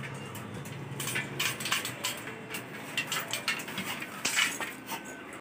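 Aluminium stepladder being climbed down: a run of irregular light metallic knocks and clinks as the feet come down on the rungs and the ladder frame shifts.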